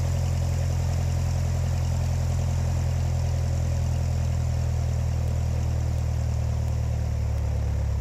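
Cessna 172's piston engine and propeller running steadily at low taxi power, heard inside the cabin as an even drone that does not change.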